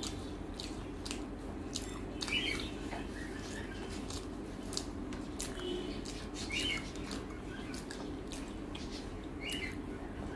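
Close-miked eating sounds: chewing and wet mouth clicks, with fingers mixing rice and fried bitter gourd and potato on a plate. A bird chirps briefly three times in the background, about three seconds apart.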